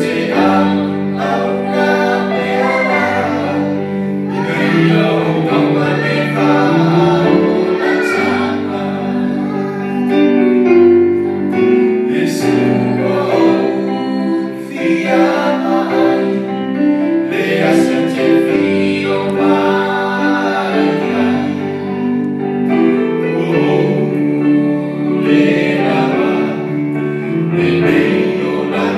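Two men and a woman singing a Samoan gospel song together through microphones, over a held accompaniment of sustained chords.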